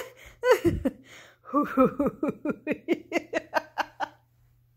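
A person laughing: a short falling laugh, then a fast run of ha-ha pulses, about five a second, that fades out about four seconds in.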